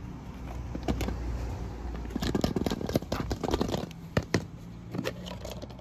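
Hollow plastic ball-pit balls rattling and clacking against each other as a hand digs a plastic surprise egg out of them, loudest about two to four seconds in, followed by a few sharp clicks of hard plastic being handled.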